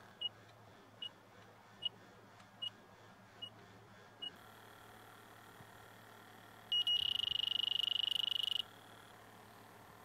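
Infrared refrigerant leak detector beeping a little faster than once a second, six times, as it samples the air around the coil joints. About seven seconds in it switches to a loud, rapidly pulsing high alarm tone for about two seconds, the signal that it has picked up refrigerant trace gas escaping from a leak.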